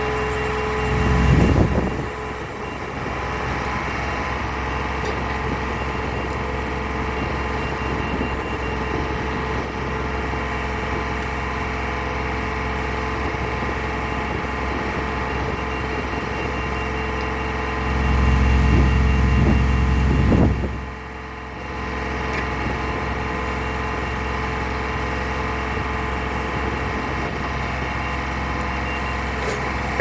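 Orteco HD1500 solar pile driver's engine and hydraulics running steadily with a steady whine. The engine swells louder and deeper twice: briefly about a second in, and for a couple of seconds from about 18 seconds in.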